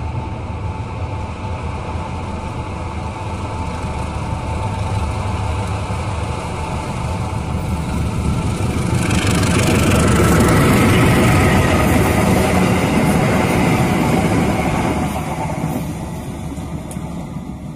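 Long-hood diesel-electric locomotive running out of a tunnel and passing close by with its train. The engine sound grows louder, with a hiss of wheels on rail joining about nine seconds in. It is loudest for a few seconds and then fades as the train goes by.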